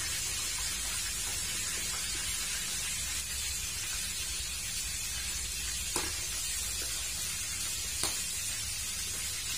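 Pisang-pisang fish frying in oil in a pan, a steady sizzle, with two light knocks about six and eight seconds in.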